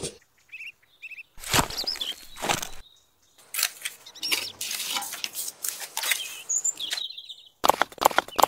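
Small birds chirping in short calls, over stretches of rough scraping as a small trowel spreads wet mortar along a row of miniature bricks.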